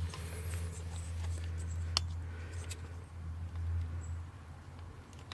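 Old turn signal flasher relay being pulled out of its socket under the dash, with faint handling ticks and a single sharp click about two seconds in, over a steady low hum.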